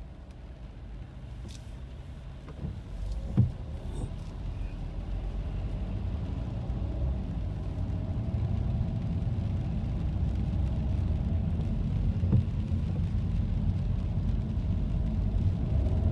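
Car cabin noise: a low engine and tyre rumble that grows steadily louder as the car pulls away and picks up speed, with a couple of brief knocks.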